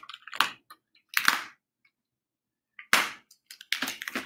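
A shipping box's tape and cardboard being cut open with a scalpel: short scratchy strokes about a second apart, then a quicker run of them near the end.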